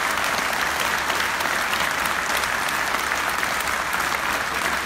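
A large seated audience applauding steadily in a big hall, a dense even clatter of many hands clapping.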